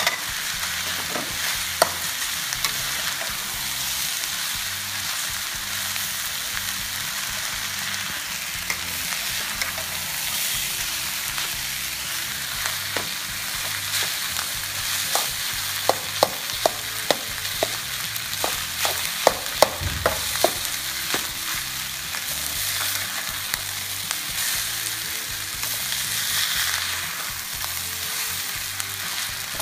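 Rice sizzling in a stainless-steel wok while a metal spatula stirs and tosses it, with a steady frying hiss. Around the middle comes a quick run of spatula clinks and scrapes against the pan.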